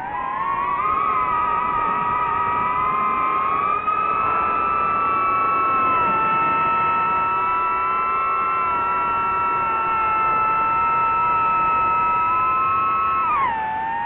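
DJI FPV drone's motors and propellers whining. The pitch climbs over the first few seconds, holds high and steady, then drops sharply near the end as the throttle is cut back.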